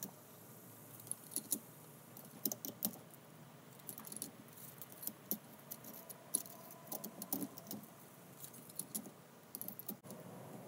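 Steel clutch discs of a Can-Am Smart-Lock front differential's clutch pack clinking against each other and the steel basket as they are fitted back in by hand. The clinks are light and irregular, scattered through the whole stretch.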